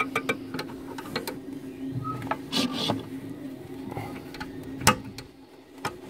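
Scattered small clicks and scrapes of a screwdriver and a metal split pin against the plastic fittings inside a toilet cistern as the pin is worked into the linkage, with one sharper click about five seconds in. A steady low hum runs underneath.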